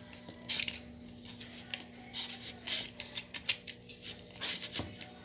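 Utility knife blade cutting through styrofoam: a series of short, uneven cutting strokes.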